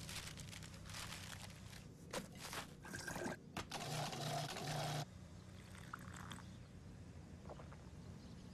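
Liquid pouring and splashing, then a countertop blender's motor run in three short pulses, over a low steady hum.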